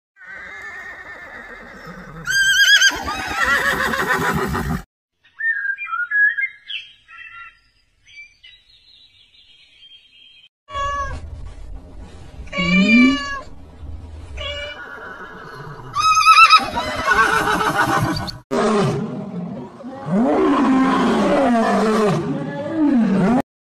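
A run of animal calls from different animals, one after another, cut off abruptly between clips, with a quiet gap in the middle.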